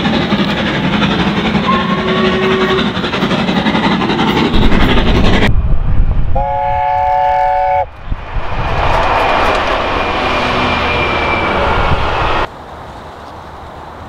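Steam locomotives on the main line, heard in several short clips. The first is a train running with two brief whistle notes. About six seconds in, a chime whistle sounds a chord of several notes for about a second and a half. Then a train runs by with a thin high whistle, before a cut to a quieter stretch.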